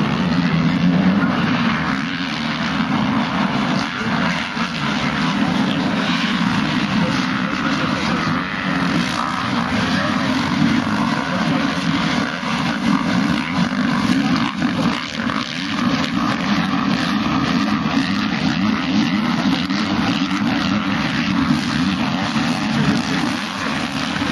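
Engines of several motocross dirt bikes racing in a pack, a continuous buzzing that rises and falls as the riders rev through the track.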